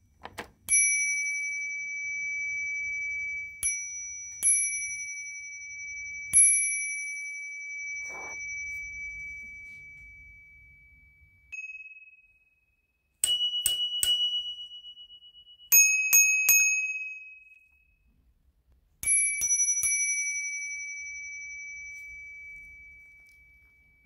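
Pro Bike Tool brass bicycle bell rung with its thumb lever: single dings, each leaving a long, clear ring that slowly dies away. Partway through, a second, red bicycle bell is rung in quick runs of strikes with a higher, shorter ring. Near the end the brass bell is struck again a few times and rings out.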